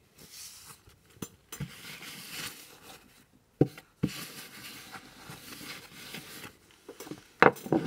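Paper tissue rustling as it is handled, in soft stretches, with a few sharp knocks, the loudest near the end.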